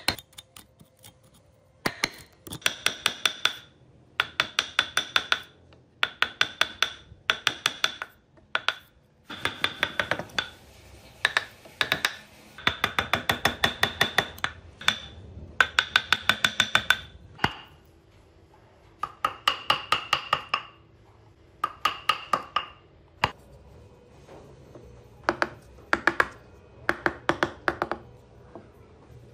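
Rapid hammer taps on a steel carving chisel cutting into a wood block, each strike ringing metallically. The taps come in bursts of about one to two seconds, roughly six to eight a second, with short pauses between them.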